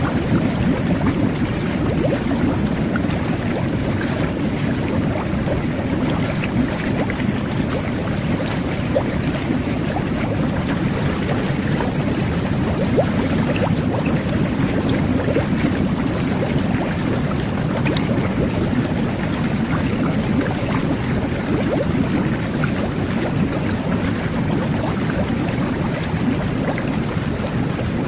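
Jet bath running: water churning and bubbling steadily under the jets, with small pops of bubbles breaking through.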